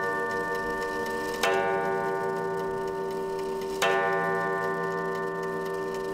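Drone-music soundtrack: a dense chord of steady ringing tones, struck afresh with a sharp bell-like attack about a second and a half in and again near four seconds, each strike fading back into the held drone.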